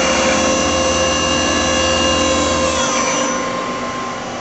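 Star SV-20 CNC Swiss lathe's sub spindle running at about 10,000 RPM with a steady whine, then spinning down about three seconds in. The machine's steady hum carries on underneath.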